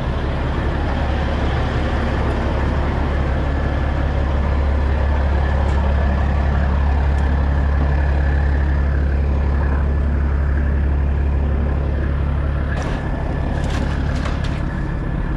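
Semi truck's diesel engine idling steadily, with a deep, even hum. A few sharp clicks come near the end.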